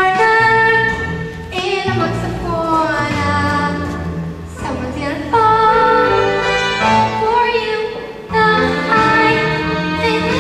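A musical-theatre song: voices sing long held, wavering notes in phrases over instrumental accompaniment.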